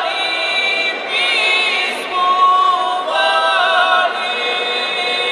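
A group of women singing a traditional folk song a cappella together, in long held notes with short breaks between phrases.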